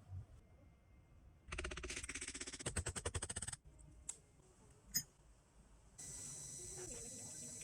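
Small power tool used to sharpen a drill bit, run in two short bursts: first a rapid rattling chatter for about two seconds, then after two sharp clicks a steady high whine near the end.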